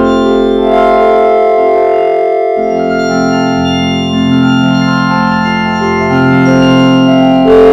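Loud, held organ-like electronic chords whose pitches shift every second or so, with the low notes briefly dropping out about two and a half seconds in.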